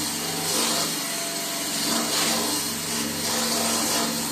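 Heavy wire wheel on a power tool scouring rust off a steel lawn-roller seam before welding. The motor's steady whine runs under a scratchy hiss that swells and eases again and again as the wheel is pressed on and worked along the seam.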